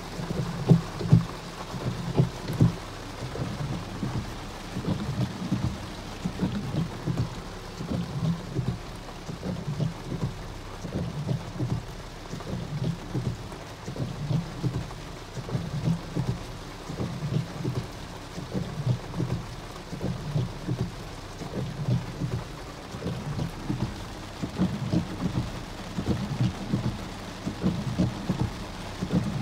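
Torrential rain drumming on a car's roof and windshield, heard from inside the car as a dense, irregular patter of drops, with a few louder hits in the first few seconds.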